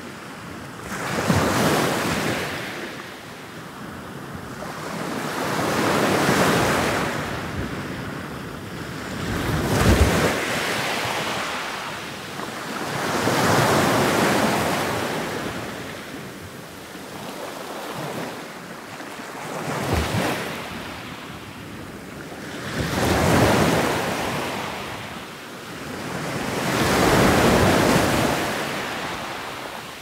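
Ocean surf: waves break one after another, each rising to a rush and falling away. About eight come in, one every three to four seconds.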